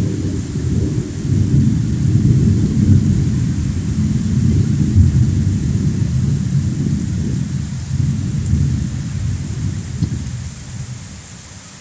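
A long roll of thunder over rain: a deep rumble that starts suddenly, swells and ebbs for about ten seconds, then fades out near the end.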